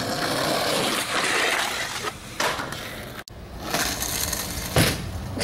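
Skateboard wheels rolling over asphalt, a rough steady noise. After an abrupt cut a few seconds in there are sharp clacks of the board, the loudest near the end.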